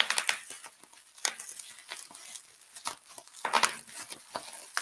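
Plastic bubble wrap being squeezed and crinkled in the hands, giving a run of irregular sharp crackles and pops.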